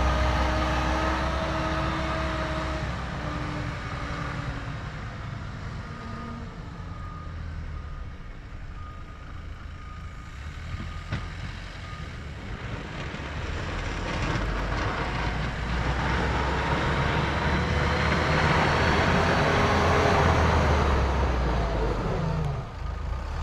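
Kubota M5-091 tractor's four-cylinder diesel engine running under load while it pushes snow, fading as the tractor moves away and growing louder again as it comes back. A faint, evenly repeated beeping sounds for several seconds midway.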